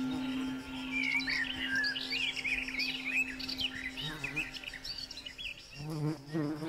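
Small birds chirping and twittering in quick, varied calls over a steady low hum tone. Near the end the birds have faded and the hum gives way to a wavering low buzz.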